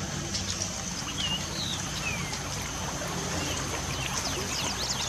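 Steady hiss and patter of light rain, with birds chirping over it: a few short whistled chirps early on, then a quick run of falling notes near the end.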